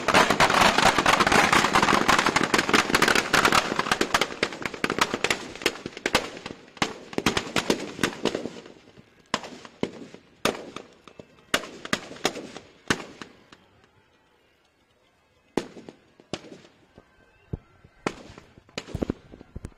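Firecrackers packed inside a burning Dussehra effigy going off in a dense, rapid crackle of bangs. After about eight seconds the crackle thins to scattered single bangs and pops, with a short lull about three-quarters of the way in.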